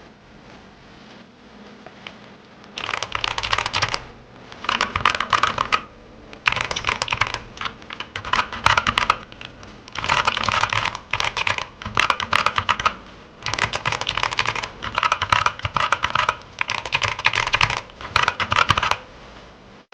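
Typing on a Kodessa KDA61 60% mechanical keyboard with Outemu brown tactile switches: fast runs of key clacks in bursts of a second or two, with short pauses between them, starting about three seconds in.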